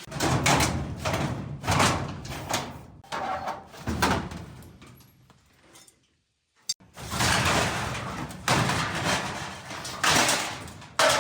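Repeated loud scraping and knocking of metal equipment being shoved and handled, in two runs of several seconds each with a brief pause about halfway through.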